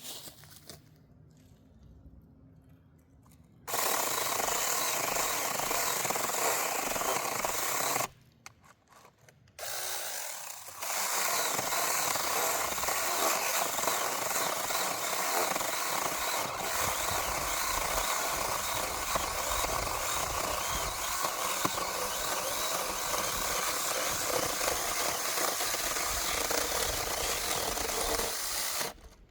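Battery-powered mini chainsaw with a 6-inch bar cutting wood. It runs about four seconds, stops briefly, restarts with a short weaker run, then makes one long steady cut of about eighteen seconds that stops suddenly near the end.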